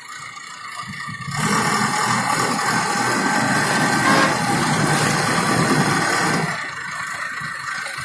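Diesel engine of an AIMIX AS2.6 self-loading concrete mixer running as the machine drives past, getting much louder about a second in and easing off near the end.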